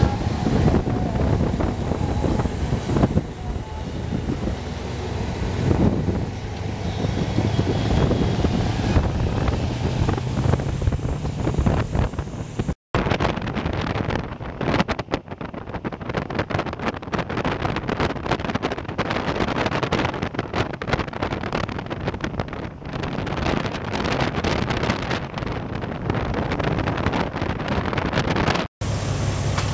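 Wind rushing over the microphone over a steady rumble of engine and road noise, recorded from a vehicle moving at expressway speed. The sound breaks off abruptly twice: about 13 seconds in and near the end.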